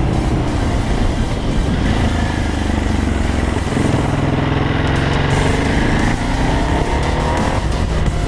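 Ducati motorcycle's V-twin engine accelerating, its pitch climbing steadily, dipping sharply about three and a half seconds in and again near the end, then climbing again. Wind rushes over the camera throughout.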